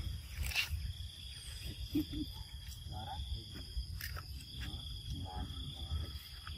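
Macaques eating raw cucumber, with two sharp crunches as a piece is bitten, about half a second in and at four seconds, and softer chewing between. A steady high insect buzz drops out and comes back, over a low rumble.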